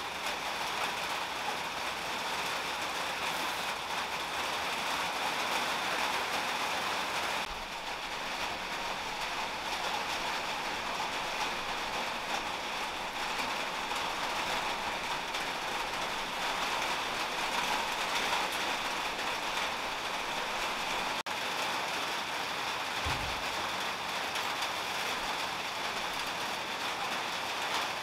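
A steady, even hiss like rain, with a soft low thump about 23 seconds in.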